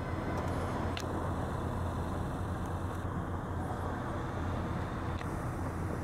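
Steady low outdoor rumble with a faint click about a second in.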